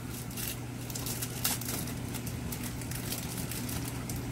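Clear plastic bag crinkling and crackling in the hands as it is opened to take out a small lens filter, with sharper crackles about half a second and a second and a half in, over a steady low hum.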